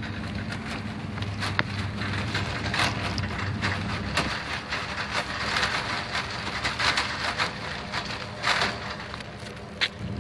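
Shopping cart with a broken wheel rattling and clattering as it is pushed along, with many irregular clicks over a steady low hum.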